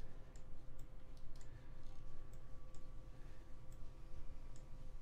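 Faint irregular computer mouse clicks, about two a second, over a steady low hum with a thin faint steady tone.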